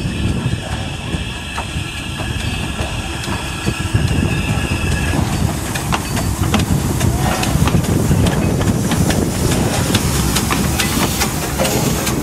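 Narrow-gauge steam train running: a steady hiss with high held tones for about the first five seconds, then a louder rumble with rapid clicking of wheels over the rails.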